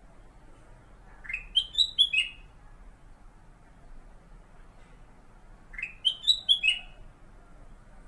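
Black-crested bulbul (kutilang emas, Pycnonotus melanicterus) singing: two short phrases of four or five clear whistled notes, each phrase climbing then dropping back in pitch, about four seconds apart.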